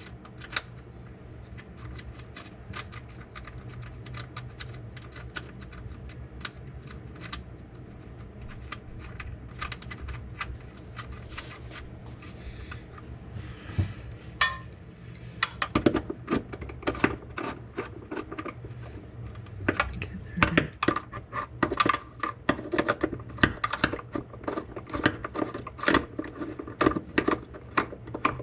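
Light metallic clicks and clinks of hand tools and mount hardware being handled while new transmission mounts are fitted to a BMW E46. The clicks are sparse at first and become busier and louder about halfway in, over a steady low hum.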